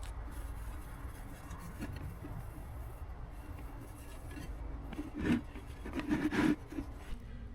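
Rubbing and scraping at stripper-softened spray paint on a dirt bike's front wheel, mostly faint, with a few short louder scrapes after about five seconds.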